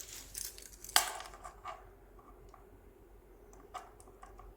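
Handling noise while measuring a bust: one sharp click about a second in, then faint small clicks and rustling.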